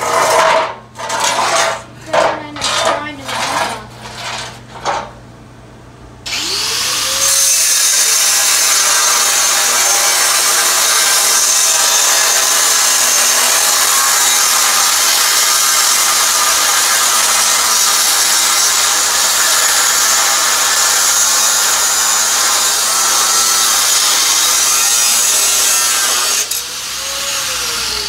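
A few loud knocks, then an angle grinder spins up and cuts steadily through a seized steel bolt for about twenty seconds, winding down near the end.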